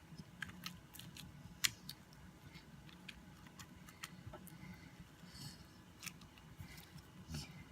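Faint, scattered clicks and sticky snaps from slime being handled and shown off, with no steady sound beneath them.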